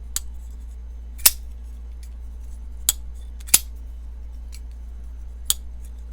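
Brian Brown Yeager folding knife worked open and shut, with about five sharp metallic clicks of the blade snapping into place; the loudest come about a second in and around the middle. A steady low hum runs underneath.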